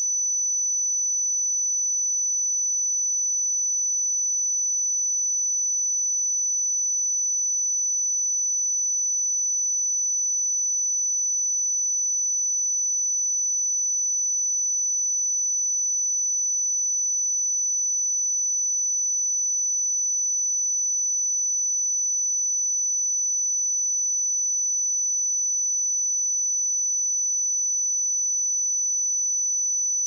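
A pure 5985 Hz sine-wave test tone, a single steady high-pitched whistle that holds constant in pitch and loudness.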